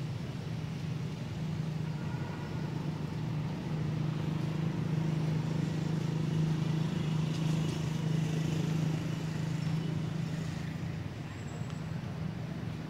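Steady low engine hum of a motor vehicle, growing louder through the middle and easing toward the end.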